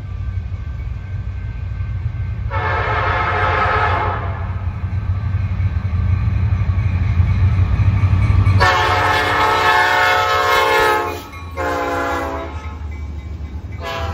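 Approaching CN diesel freight locomotives with a low, steady engine rumble, their multi-tone air horn sounding a long blast, then another long blast, a short one, and the start of a final long one near the end. This is the long-long-short-long grade-crossing signal.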